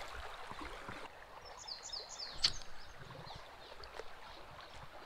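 Quiet creek-bank ambience: a faint steady wash of flowing water, with a few sharp clicks from a spinning reel and rod being handled. A little under two seconds in, a bird gives a quick run of short high chirps.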